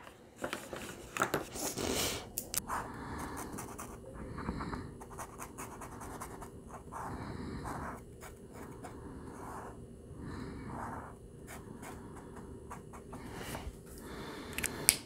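Tooli-Art acrylic paint pen tips scratching and rubbing on sketchbook paper as small colour swatches are filled in, in repeated soft strokes. A few sharp clicks near the start come from the pens being handled.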